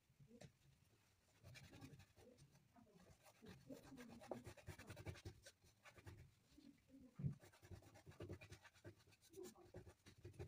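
Faint scratchy rubbing and dabbing of a painting tool working paint onto a wooden board, in irregular strokes.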